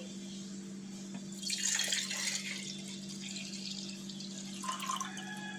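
Liquid being poured and splashing into a mug for about a second and a half, a little over a second in.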